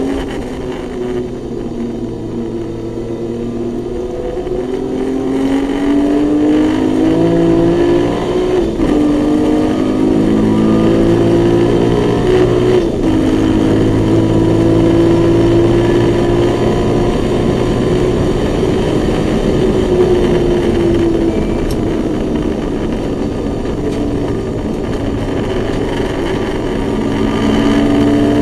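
In-cabin sound of a BMW E21 race car's naturally aspirated 2.7-litre M20 straight-six under hard acceleration. The engine note climbs and drops back twice as it is shifted up through the gears, then holds at high revs, eases slightly and climbs again near the end.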